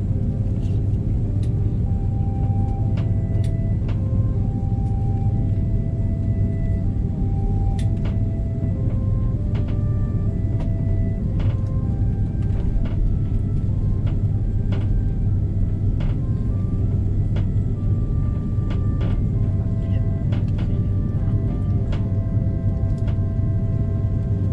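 Airbus A330 cabin noise after landing: a steady low rumble, with a soft melody of short notes playing over it and scattered light clicks.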